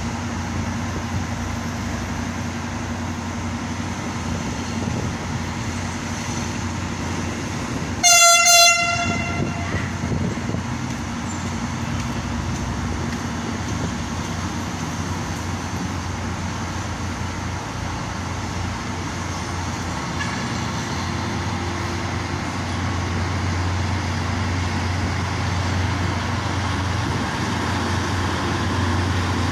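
Diesel locomotive hauling passenger coaches, its engine running with a steady low hum that grows a little louder near the end as it nears. About eight seconds in, it sounds one short horn blast, the loudest sound.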